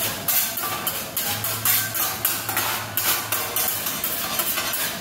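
Metal spatula chopping and scraping fried rice and egg on a flat-top teppanyaki griddle: a quick run of sharp clacks, several a second. A low steady hum runs underneath from about a second in.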